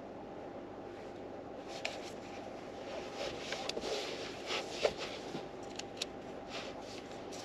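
Paper rustling and scraping with a few sharp clicks, as of a book's pages being handled and turned, from about two seconds in until near the end, over a steady background hum.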